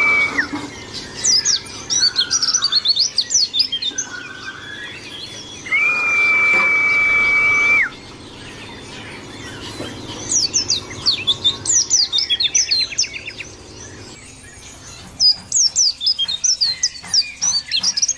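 White-eye (pleci) song: bursts of fast, high twittering chirps, broken twice by a long, steady whistled note, one ending just after the start and one about six seconds in. A short buzzy trill comes around twelve seconds.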